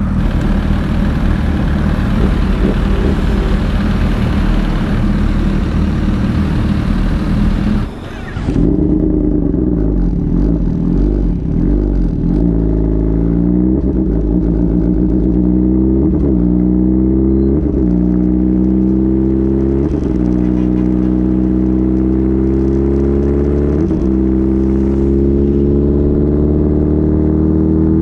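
Kawasaki ZX-10RR's inline-four engine through an Arrow exhaust with the baffle removed, running loud under way. After a brief drop about eight seconds in, a clear engine note climbs slowly in pitch as the bike gains speed.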